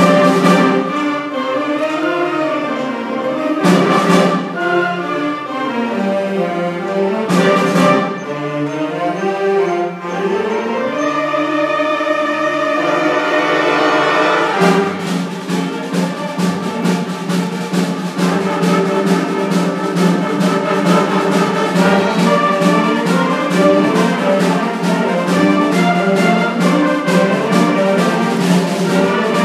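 School concert band playing wind-band music: sustained brass and woodwind lines with two cymbal crashes in the first half, then a fast, steady percussion beat entering about halfway under the held band chords.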